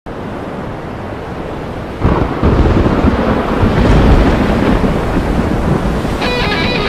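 Thunderstorm effect: a steady rush of storm noise, then a thunderclap about two seconds in that rumbles on loudly for several seconds. Near the end an electric guitar starts a quick run of notes.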